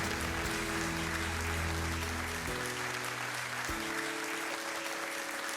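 Applause over background music; the music's held chords change about two and a half seconds in and again near four seconds.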